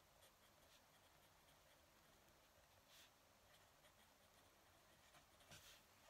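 Fountain pen nib scratching faintly across paper as it writes in cursive, in quick short strokes, with a couple of slightly louder scratches about halfway and near the end.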